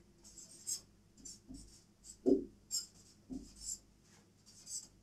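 Marker pen writing on a whiteboard: a run of short scratching strokes as letters are written. About two and three seconds in there are brief squeaks with a falling pitch.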